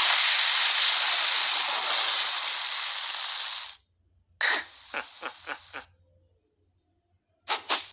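Cartoon sound effect of rushing sand: a loud, steady hiss that cuts off abruptly nearly four seconds in. It is followed by a sharp hit and a quick run of short, fading strokes, and one more short sharp sound near the end.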